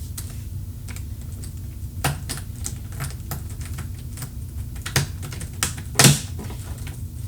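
Irregular plastic clicks and clacks of a Rubik's Cube being handled while a popped-out piece is worked back into place, with the loudest click about six seconds in.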